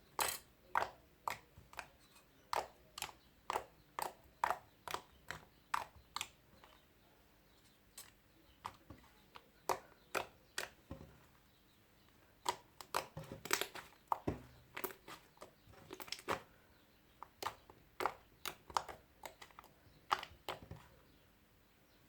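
Homemade shaving-cream slime being squeezed and pressed in the hands, giving a run of sharp clicking pops, often about two a second, with a couple of short pauses.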